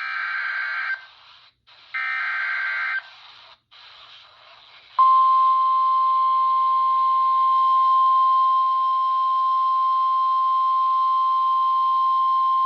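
NOAA Weather Radio emergency alert on a RadioShack 12-254 weather radio: two short SAME digital header data bursts, each about a second long and two seconds apart, with faint radio static between them. About five seconds in, the steady 1050 Hz warning alarm tone starts and holds, signalling that a warning follows.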